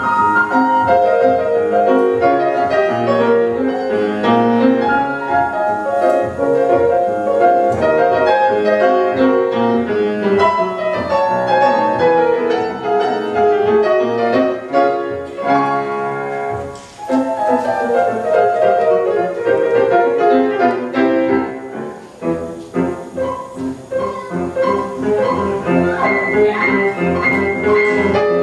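Grand piano playing solo, with quick descending runs of notes and two brief lulls partway through.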